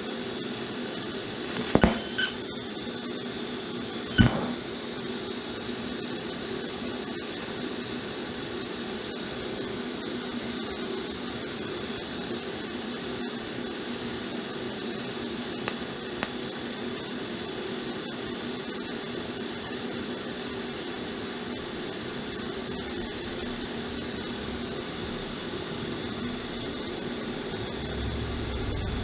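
TIG welder arc running steadily on a cracked motorcycle frame, a steady high-pitched hum, with a few sharp cracks about two seconds in and one about four seconds in.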